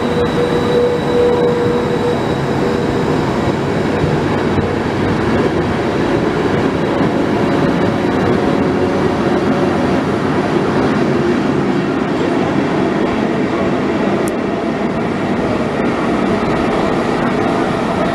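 Frecciabianca passenger train hauled by E.414 electric locomotives moving along a station platform: a steady rumble of wheels on rail, with a steady whine for the first few seconds.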